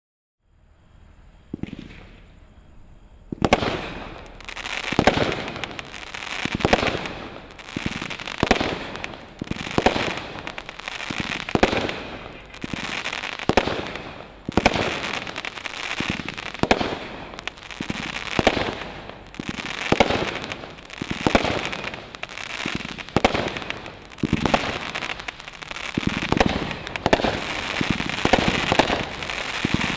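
BP2030 'Acid Rain / Heavy Weights' consumer firework cake firing: shots start about three seconds in and come roughly once a second, with a dense crackle filling the gaps between them.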